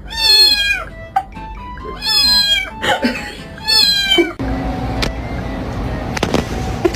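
Domestic cat meowing loudly three times, each call sliding down in pitch, over background music. The last few seconds are taken up by a steady rushing noise.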